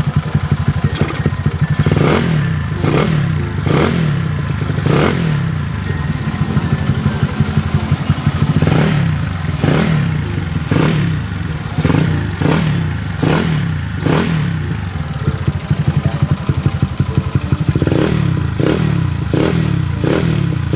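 A freshly rebuilt Yamaha Mio scooter engine, built up to 180cc, running with the throttle blipped again and again: quick revs that rise and fall back, in clusters, between stretches of steady running.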